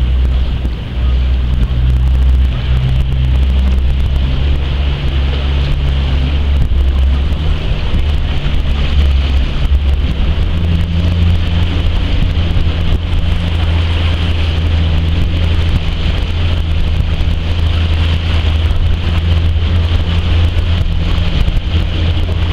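A boat motor runs steadily, its pitch stepping up slightly about ten seconds in, with wind rushing on the microphone.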